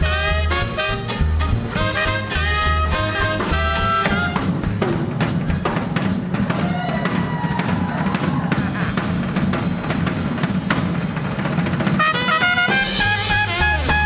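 Swing band with trumpet and saxophone playing over a walking bass. About four seconds in the horns drop out for a drum-kit break of snare and rimshot strokes, and the horns come back in near the end.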